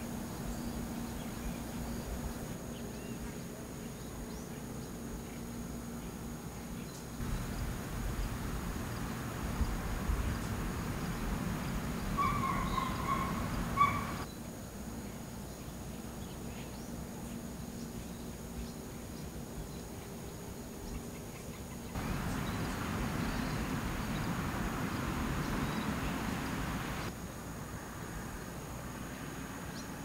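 Outdoor field ambience: a steady noisy background with a faint low hum, which shifts abruptly between clips. A bird gives a brief call of a few short notes about twelve seconds in.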